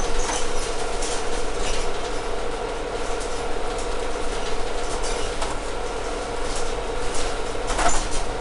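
Interior of a moving Mercedes-Benz Citaro G articulated bus: a steady drivetrain drone with rattles and clicks from the cabin fittings, the loudest knock about eight seconds in.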